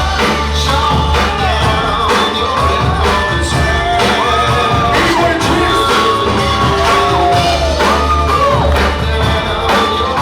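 Loud music with a heavy bass, a steady beat and a singing voice.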